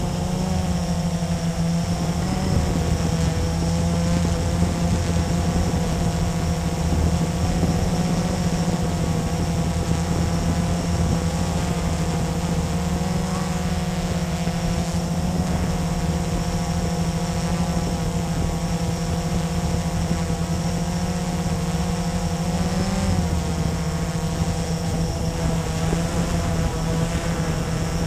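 Blade 350QX quadcopter's electric motors and propellers whining steadily in flight, heard close from the camera mounted on the drone. The pitch shifts slightly now and then as it manoeuvres.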